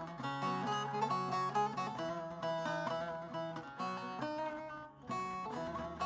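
Background music: a plucked string instrument playing a quick melody of short notes, which falls away for a moment just before the end and then resumes.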